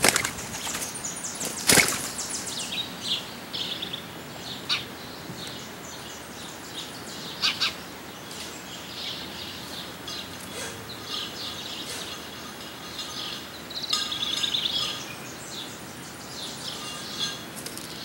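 Wings flapping as a mourning dove and small birds flutter up off a ground feeder, with one sharp loud flap about two seconds in. Small birds chirp and twitter in short, high calls throughout.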